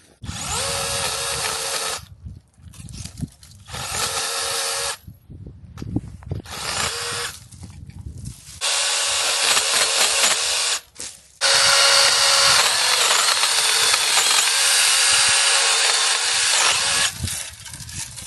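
Cordless electric pole saw with a brushless motor running in five bursts as it cuts plum tree limbs, with short pauses between cuts; the longest cut runs about six seconds near the end.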